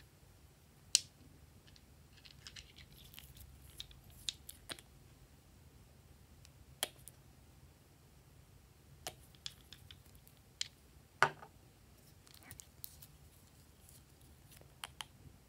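Scattered sharp clicks and taps of glass nail polish bottles and their caps being handled, the loudest about a second in and again near eleven seconds, over a faint steady hum.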